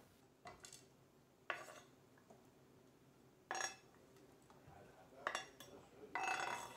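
A chef's knife scraping chopped vegetables off a wooden cutting board into a nonstick skillet: a handful of short, quiet scrapes and clatters of pieces landing in the pan, the last one longer.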